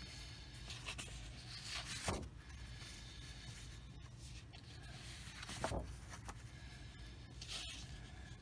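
Paper Strat-O-Matic football cards being flipped through and slid over one another: three soft swishes with a few faint taps, over a low steady hum.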